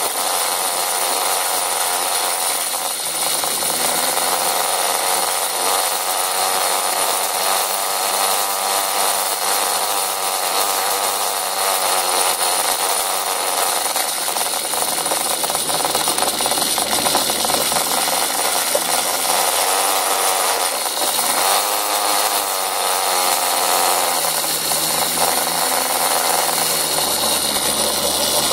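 Small motor scooter engine buzzing steadily on the move, its pitch rising and falling several times with the throttle, over a constant rush of wind and tyre noise on gravel.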